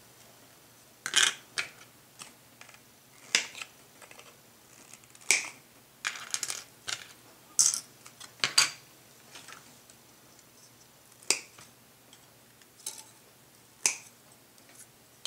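Polystyrene model kit parts being snipped off their sprues with side cutters: about a dozen sharp snaps at irregular intervals, with a little handling of the plastic between.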